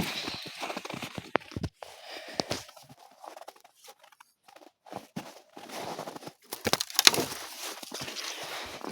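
Footsteps crunching in snow, with scattered sharp cracks of dry branches being snapped for firewood; the crunching is densest a little past the middle.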